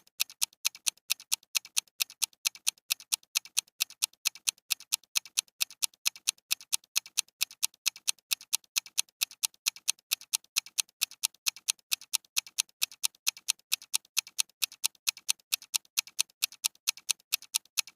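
Ticking-clock countdown timer sound effect, a steady tick-tock of sharp, crisp clicks at about two a second, counting down a 20-second time limit.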